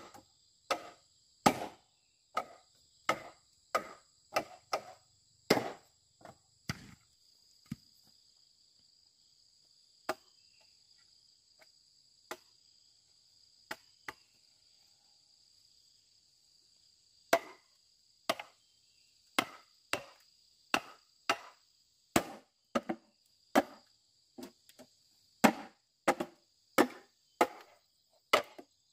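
Repeated chopping blows with a blade, about one and a half strokes a second, that stop after about seven seconds for a long pause broken by three single strikes, then resume steadily from a little past the middle. Under it runs a steady, high-pitched insect drone.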